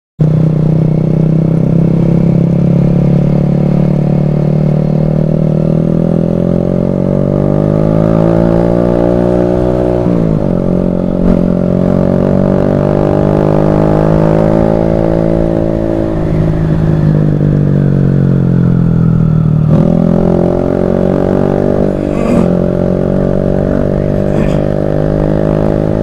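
Automatic scooter's engine through an aftermarket SC Project-style open exhaust, running under way: the note climbs steadily as the scooter gathers speed, drops sharply when the throttle is closed about ten seconds in, climbs again, and drops once more near twenty seconds.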